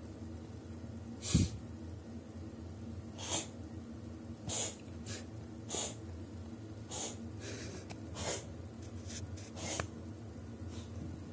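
A cat sneezing and snorting in short bursts, about ten of them at uneven gaps, the first the loudest, as it clears tap water it has choked on.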